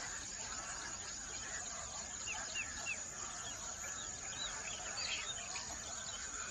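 Small songbirds chirping in short, quick, down-slurred notes, a run of three about two seconds in and a few more around the fifth second, over a steady high insect drone.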